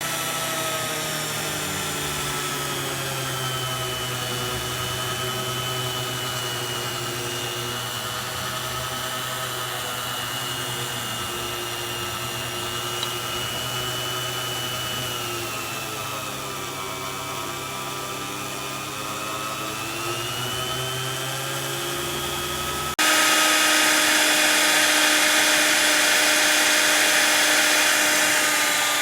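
CNC router spindle motor running steadily while cutting expanded PVC sheet, a whine with a low hum, its pitch sagging and recovering midway as the load changes. About three quarters of the way through the sound jumps suddenly louder and hissier.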